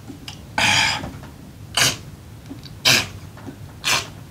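A rakugo storyteller's mouth-made slurping of soba noodles: four short, noisy slurps about a second apart, the first a little longer.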